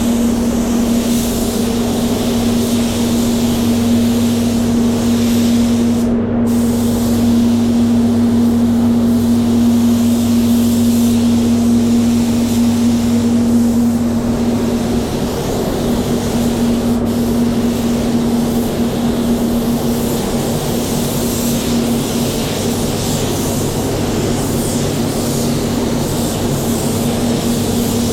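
Paint spray gun hissing as it sprays epoxy primer, over a steady low hum of workshop machinery. The hiss breaks off for a moment about six seconds in.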